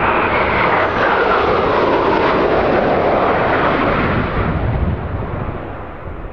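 Northrop F-5E Tiger II jets flying past with the noise of their twin J85 turbojets, a sweeping tone dropping in pitch over the first couple of seconds, then fading away near the end.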